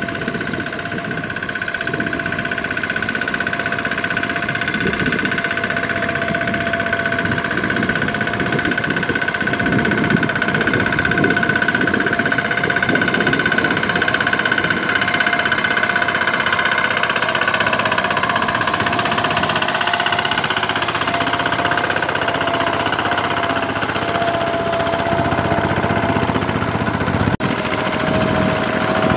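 Single-cylinder diesel engine of a Kubota ZT155 two-wheel walking tractor running steadily with a rapid knocking beat, under load as it hauls a trailer of rice sacks through mud. There is a brief break near the end.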